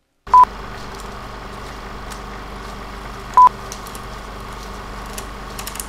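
Title-card sound effect: a steady bed of electronic static hiss and low hum, broken by a short beep about half a second in and another about three seconds later, the beeps the loudest part, with a few faint clicks.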